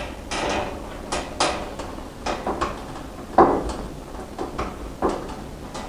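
A rubber gas hose being worked onto a heater's inlet and a metal Jubilee clip fitted and tightened: irregular clicks, scrapes and knocks, several a second, the loudest about three and a half seconds in.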